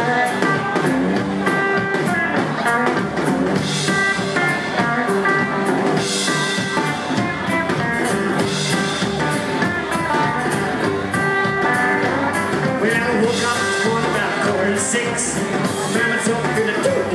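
A rockabilly band playing live, instrumental: electric guitar and acoustic guitar over upright double bass and a drum kit, with cymbal hits every couple of seconds.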